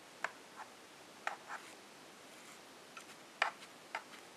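Soft, uneven clicks and scratches of a needle and thread being worked through fabric folded over card mounting board, with fingers handling the fabric: about seven small sounds scattered across a few seconds.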